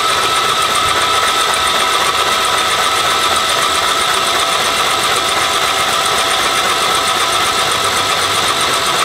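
A motor running steadily at a constant speed, with a steady whine.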